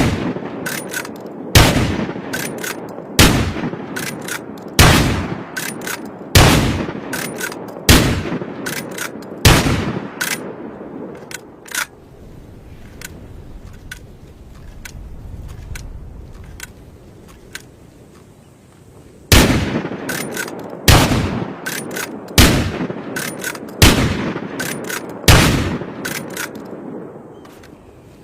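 Winchester Model 1887 lever-action shotgun firing in two strings: seven shots about a second and a half apart, a pause, then five more, with small clicks between the shots.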